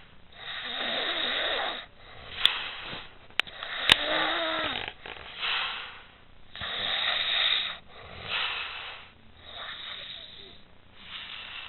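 A sleeping woman snoring, with about eight rasping breaths one to two seconds apart. Three sharp clicks come a little after two seconds in and around four seconds in.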